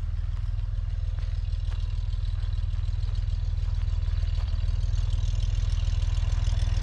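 A 1962 Chevrolet Greenbrier van's air-cooled flat-six engine idling steadily, getting a little louder near the end.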